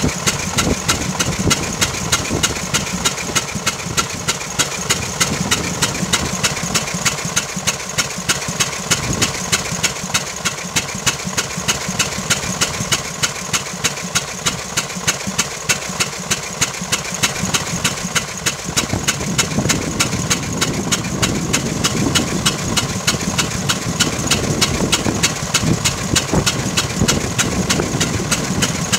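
The 16 hp gasoline engine of a 1907 Waterous horse-drawn fire engine running steadily, with a sharp regular firing beat about twice a second. The sound grows fuller about two-thirds of the way in.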